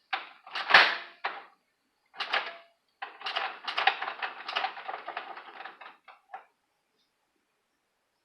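Clattering and rattling of objects being handled, in several bursts of rapid clicks; the longest runs about three seconds before it stops.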